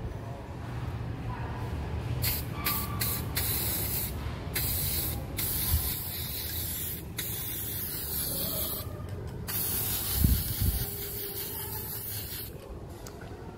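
Aerosol can of chrome spray paint hissing in a string of short bursts with brief breaks, then a longer spray toward the end. A low thump sounds about ten seconds in.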